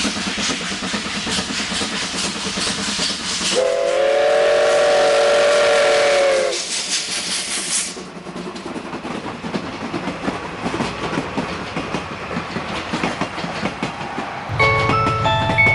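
Class C56 2-6-0 steam locomotive passing under steam, its exhaust beating rapidly, then sounding its whistle for about three seconds. The coaches follow, rolling past with wheels clicking over the rail joints and fading away. Near the end, chiming background music begins.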